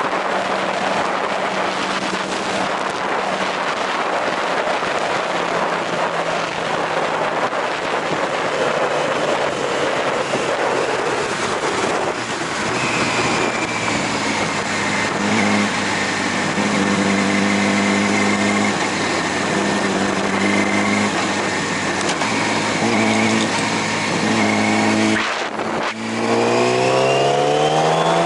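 Sport motorcycle riding at highway speed: wind rush and a steady engine note. Near the end the sound drops briefly at a gear change, then the engine note climbs as the bike accelerates.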